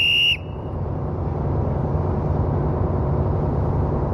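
A short, shrill whistle blast of about half a second right at the start, used as a signal during a ship's hull rolling test, followed by a steady low rumble.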